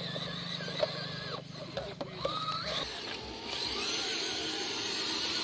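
Small electric motors and gear drives of radio-controlled rock crawlers whining, the pitch rising and falling with the throttle, with a few sharp clicks.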